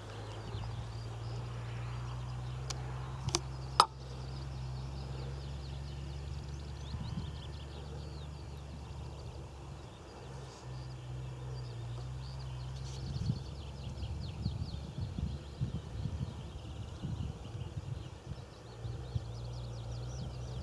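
Outdoor field ambience: a low steady rumble with faint bird chirps, and two sharp clicks about three and a half seconds in.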